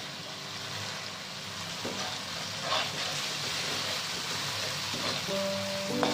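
Red chili paste frying with a steady sizzle in a nonstick wok, with a spatula stirring and scraping it, loudest a little under halfway through. Background music comes in near the end.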